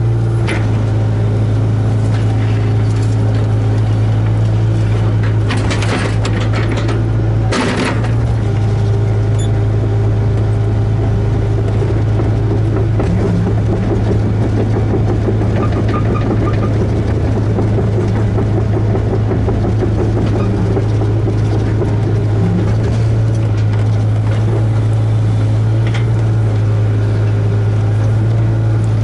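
Hitachi ZAXIS 75UR excavator's diesel engine running steadily under work, heard from inside the cab as a constant low hum. A few short knocks or clatters come about six and eight seconds in.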